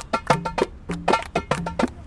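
Egyptian tabla (darbuka goblet drum) and tambourine playing a fast, steady rhythm, mixing deep ringing dum strokes with sharp tek strokes.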